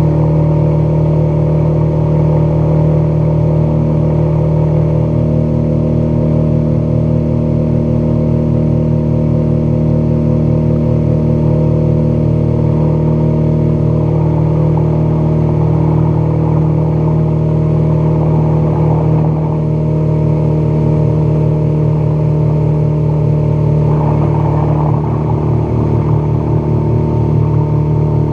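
Outboard motor on a small aluminum fishing boat running steadily at speed, its pitch holding nearly constant.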